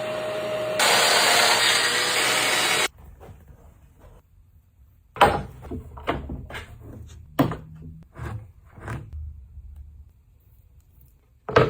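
A power tool running under load with a steady whine, cutting off about three seconds in. Then a series of sharp knocks of wood pieces being handled and set down.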